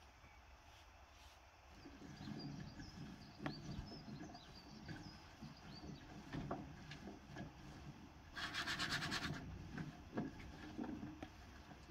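Soft rustling and light clicks of hands placing cut vegetables on a metal baking tray, with faint bird chirps in the first half. About three quarters of the way in comes a loud rattle lasting about a second.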